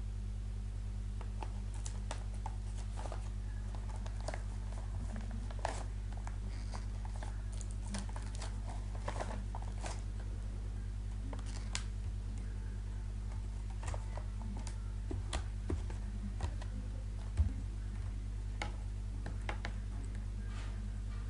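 Scattered light clicks, taps and rustles of a small object being handled, over a steady low hum, with one sharper knock near the end.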